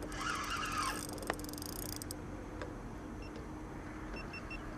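Fishing reel ticking rapidly for about two seconds near the start, with a single sharp click partway through, while a rod is loaded by a big catfish. A steady low hum runs underneath.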